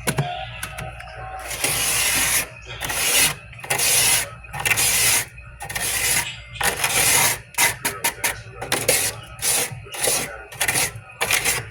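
Frost buildup on a humidifier being scraped: rasping scrape strokes, a few longer ones, then quicker, shorter strokes.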